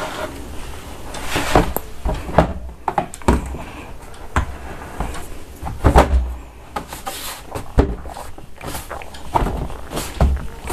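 Moulded plastic shelf knocking and clicking against the plastic cupboard's side panels as it is pushed down into place and caught in its locking slots: a string of irregular sharp knocks and clicks.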